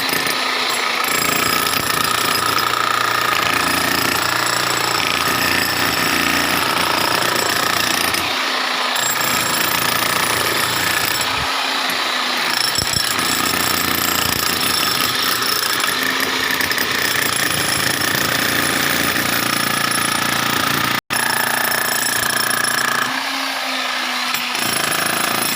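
Electric demolition hammer (jackhammer) breaking up floor tiles, running continuously with a dense rattling hammering.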